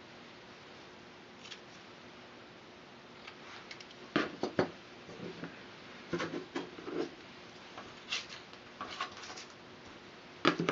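Scattered light clicks, taps and scrapes of craft tools being handled on a cutting mat: scissors, a craft knife and a metal ruler, with a sharper knock near the end.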